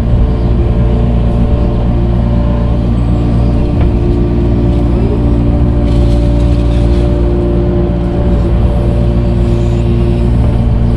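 Diesel engine of a compact digging machine running steadily under working load while its bucket moves dirt.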